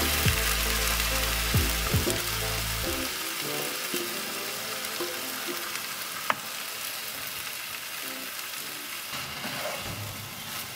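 Beef strips sizzling in a hot frying pan as they are stirred with a wooden spatula, with one sharp click about six seconds in. Background music with low notes plays over the first three seconds and then fades out.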